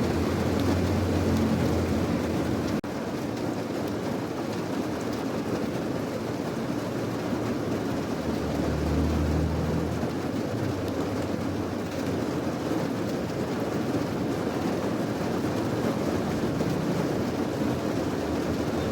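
Steady rain noise, with a low rumble twice, near the start and about halfway through, and a momentary cut-out about three seconds in.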